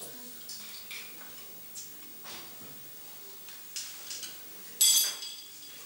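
Scattered light clicks and clinks of tableware in a restaurant dining room, with one louder, sharp ringing clink about five seconds in.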